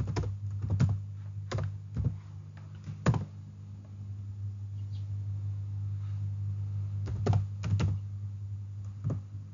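Computer keyboard keystrokes: a few scattered key presses in the first three seconds, then a short cluster near the end, over a steady low hum.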